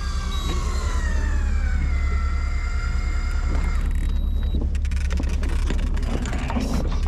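The boat's engine hums low and steady. Over it, an electric fishing reel's motor whines while winding line in, its pitch sagging as it goes. The whine cuts off a little under four seconds in, and scattered clicks and rattles follow.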